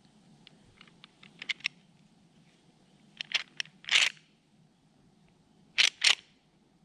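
Gear being handled at a chest-mounted binocular pack: a run of small clicks, a short scratchy rasp, then two sharp snaps in quick succession near the end, the loudest sounds here.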